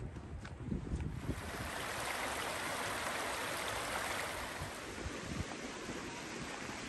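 Rushing stream water, swelling up about a second in and easing off slowly, with footsteps on the trail underneath.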